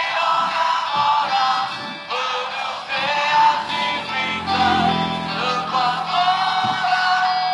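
Background music with a singing voice holding long melodic notes.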